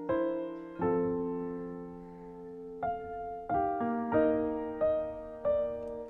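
Background music: a slow piano melody, single notes and chords struck and left to fade, coming more quickly in the second half.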